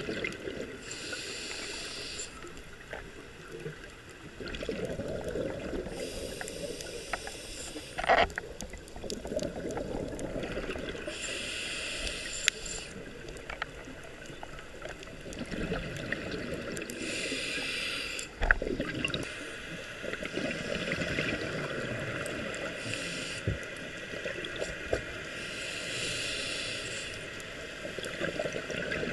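Scuba diver breathing through a regulator underwater: a hissing inhale about every five seconds, each followed by the low bubbling of the exhale. Two sharp clicks come in, about a third and two thirds of the way through.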